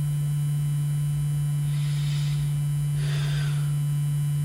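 A loud, steady low hum on a single pure tone that holds unchanged, with two faint breathy hisses about two and three seconds in.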